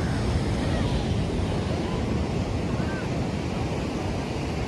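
Steady surf washing onto the beach, with wind buffeting the microphone in a constant low rumble.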